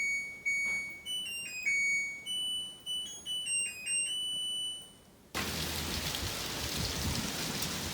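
Light background music of clear held keyboard-like notes, which cuts off abruptly about five seconds in and gives way to a steady, even hiss.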